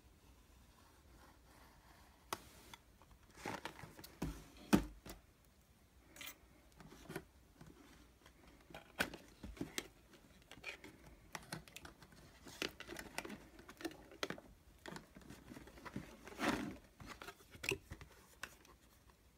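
Small scissors cutting into a cardboard blind box's wrapping, then the box being torn open and handled: scattered snips, clicks and paper-and-cardboard rustles. A sharp snap comes about five seconds in, and a longer rustle near the end.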